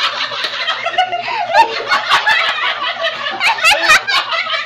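Several people laughing loudly.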